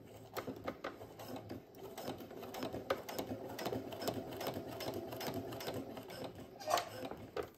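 Brother Innovis F420 computerised sewing machine stitching steadily, its needle mechanism ticking rapidly as it sews the opening of a padded fabric piece closed, then stopping just before the end.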